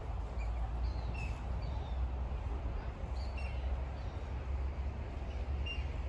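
Small songbirds chirping in the trees: short, high chirps and twitters scattered through the whole stretch, several a second at times, over a steady low rumble.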